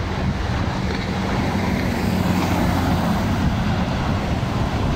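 Jet engines of a Boeing 737 airliner coming in to land, heard through wind buffeting the phone microphone.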